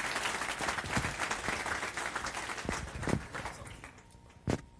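Audience applauding in a lecture hall, the clapping dying away about three and a half seconds in. Near the end comes a single sharp thump.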